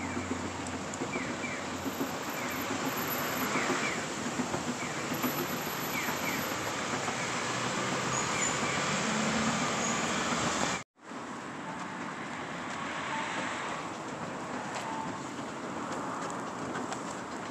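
Escalators running: a steady mechanical noise from the moving steps, mixed with outdoor traffic noise. The sound cuts out for a split second about eleven seconds in, then a Hitachi escalator runs on.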